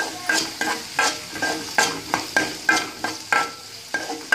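A metal spoon stirring and scraping chopped onion, carrot and curry leaves frying in oil in a metal kadai. It gives sharp metallic scrapes with a slight ring, about three a second, over a steady sizzle.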